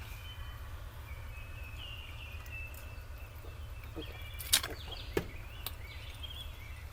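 A fork clicking twice against the meal's dish about halfway through, over a steady low hum, with faint bird chirps in the background.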